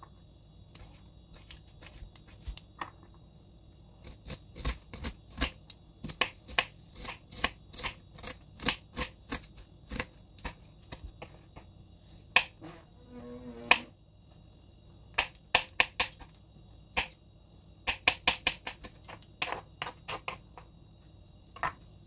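Kitchen knife chopping vegetables on a wooden cutting board: sharp knocks in quick runs of about two to three a second, with pauses between the runs.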